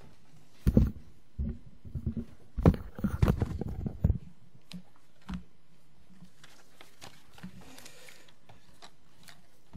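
Handling noise picked up by a lectern microphone: a series of knocks, thumps and rubbing as papers and objects on the lectern are moved about, loudest in the first four seconds, then a few faint clicks and a light paper rustle.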